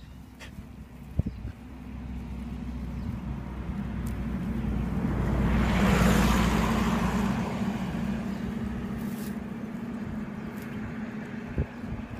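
A road vehicle passing, its rumble and tyre noise swelling to its loudest about halfway through and then fading. A few faint clicks from a whippet puppy chewing grass.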